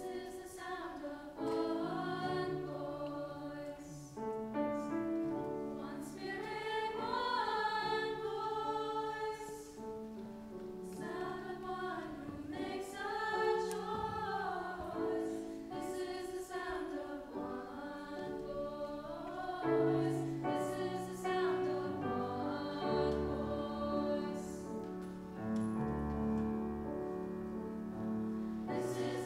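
Mixed-voice school choir singing a slow song in harmony.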